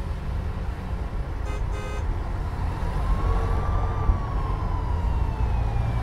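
Low rumble of city traffic, with a brief horn blast about a second and a half in. Then a siren's tone rises slightly and slowly falls in pitch over the last few seconds, as an emergency vehicle passes.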